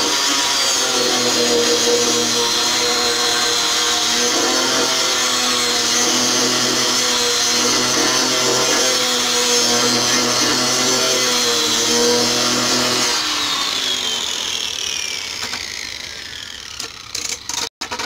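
Electric orbital sander running against the end of a pine 2x4, with a steady high whine and a rougher, shifting grind as the pad works the wood. About thirteen seconds in it is switched off, and the motor winds down in a falling whine until it stops.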